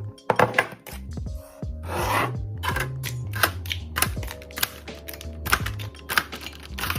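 Background music with a steady bass line, with a run of sharp clicks and knocks on top.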